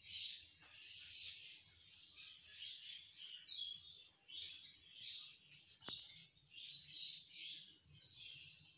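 Birds chirping and twittering: many short high calls in quick succession.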